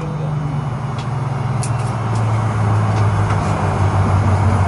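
Fokker 100's Rolls-Royce Tay turbofan engines running at idle while the jet taxis: a steady low drone over a hiss.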